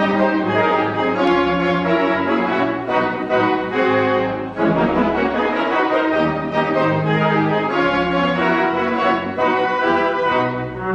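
Orchestral music with brass and strings playing sustained chords that change every second or so.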